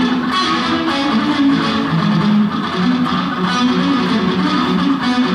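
Solo electric guitar played through a small amplifier: a steady run of picked notes that changes pitch several times a second, with some strummed chords.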